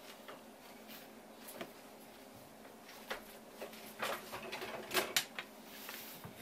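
Light off-camera clatter of tableware being handled: scattered clicks and knocks, busiest and loudest about four to five seconds in, over a faint steady hum.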